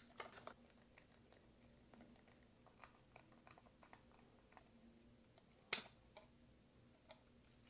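Near silence, with faint scattered ticks of a precision screwdriver and small electronic parts being handled, and one sharper click about three quarters of the way through.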